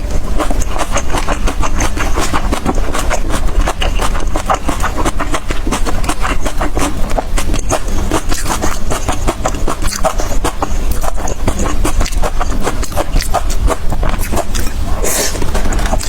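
Metal spatula scraping and clattering rapidly against a wok while stir-frying, many quick strokes a second, over a steady low hum.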